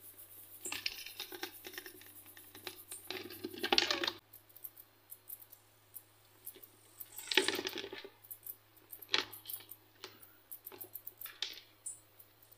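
Clicking and scraping on a clear plastic box, in several short bursts with quieter faint ticking between them.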